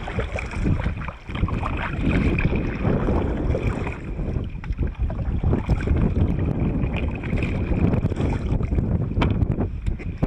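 Wind buffeting the microphone in gusts, with choppy water lapping against a kayak's hull.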